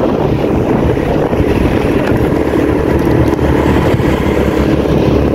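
Steady rush of wind on the microphone from a moving motorbike ride, with a small motor scooter engine running steadily underneath.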